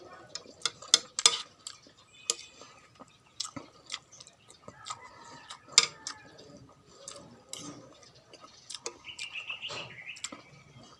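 Spoon and cutlery clinking and tapping against a bowl of pork soup during eating, a string of sharp, irregular clicks.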